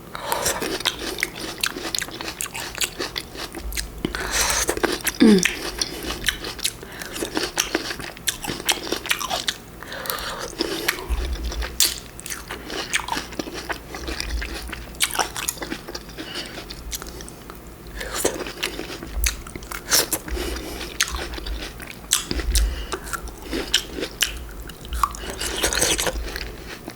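Close-up eating sounds of fresh fruit being bitten and chewed: a run of crisp, sharp mouth clicks and crunches.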